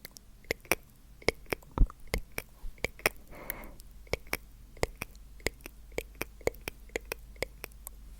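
ASMR mouth sounds: an irregular run of sharp tongue and lip clicks, about three a second, with a short breathy, whisper-like exhale about three and a half seconds in.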